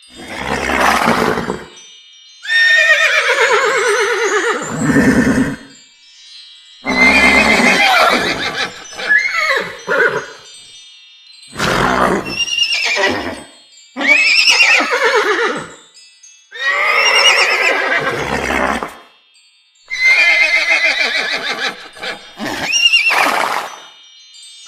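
Fantasy unicorn sound effects: a series of about nine horse-like whinnies and neighs, each a second or two long with the pitch sliding up and down, several with a thin high ringing tone laid over them.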